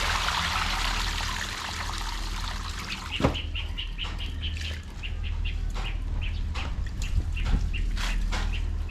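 Water sloshing and splashing as laundry is worked by hand in a basin, with a sharp knock about three seconds in. After it come quick, repeated high bird chirps, several a second, with occasional splashes.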